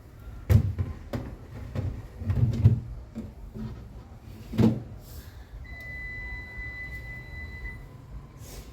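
Plastic fridge shelves and drawer parts knocking and clicking as they are handled and slotted into place, about five knocks in the first five seconds. Later a thin, steady high tone sounds for about two seconds.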